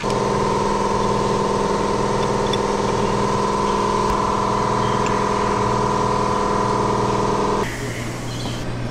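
A shop machine's electric motor and drive running with a steady hum and a higher whine, which cuts off suddenly near the end.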